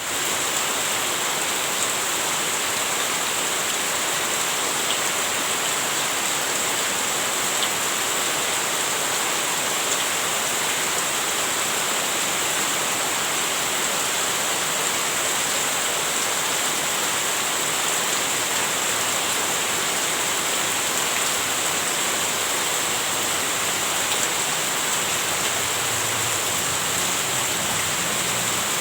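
Heavy rain falling steadily in an even, unbroken hiss, with a few faint drop ticks.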